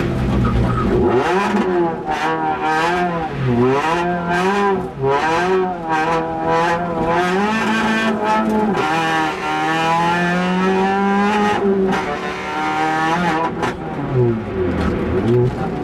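Peugeot 206's engine heard from inside the cabin, driven hard: the revs climb and drop again and again through the run.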